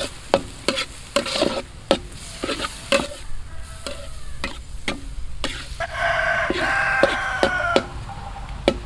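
Beef and okra being stir-fried in a pan: a utensil repeatedly clacks and scrapes against the pan over a steady sizzle. About six seconds in, a drawn-out pitched call sounds over it for roughly two seconds.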